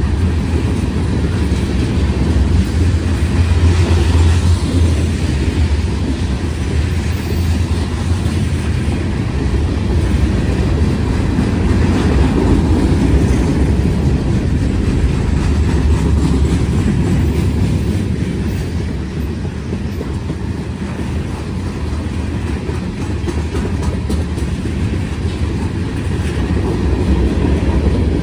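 Freight cars of a mixed freight train (tank cars, boxcars, covered hoppers) rolling past close by: a loud, steady rumble of steel wheels on the rails.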